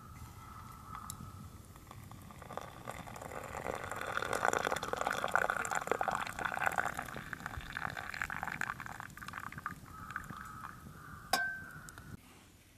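A thin stream of water poured from a kettle into an enamel mug: the splashing swells, holds for several seconds, then thins out and stops. Near the end there is one sharp clink with a short ring.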